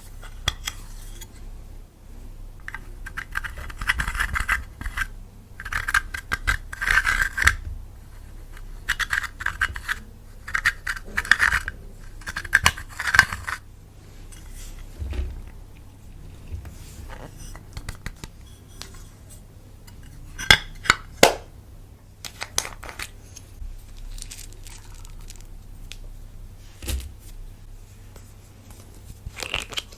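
Clear slime being worked by hand with lipstick mixed in: several spells of sticky scraping and squishing in the first half, then a few sharp clicks about two-thirds of the way through.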